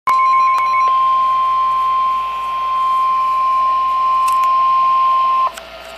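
NOAA Weather Radio emergency alert: the single steady 1050 Hz warning alarm tone, held for about five and a half seconds and then cutting off abruptly, leaving faint radio hiss. It signals that a warning message is about to be read.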